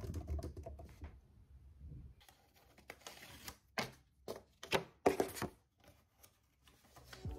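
Quick typing on a laptop keyboard for about the first second and a half, then, after a short lull, irregular paper rustling and crackling as a sticky note is bent and folded in the hands.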